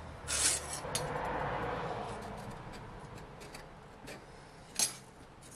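A few light clicks and scrapes from a ruler and marker being set down and moved on a steel plate while layout lines are marked. Behind them a faint rushing noise swells and fades over the first few seconds.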